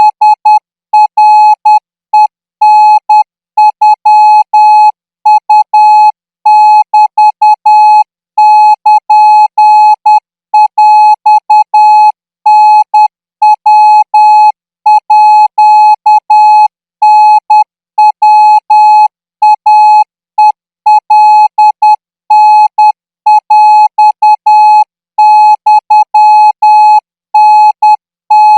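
Morse code practice tone: a single steady beep keyed on and off in short dots and longer dashes with brief gaps, sent at 14 words per minute as Thai radio signal training.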